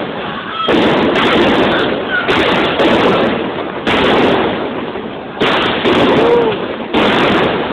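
Fireworks bangs going off at a Fallas bonfire, about five loud blasts spaced roughly a second and a half apart, each ringing on for about a second.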